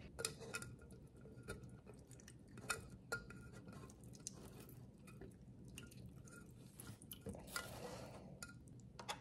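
Lemon halves squeezed by hand over a glass jar: faint drips of juice and small scattered clicks and taps against the glass, with a brief soft squeezing rustle near the end.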